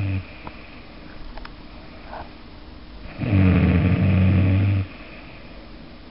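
Loud, low-pitched snoring: one long snore of about a second and a half, starting a little after three seconds in, with the tail of another at the very start.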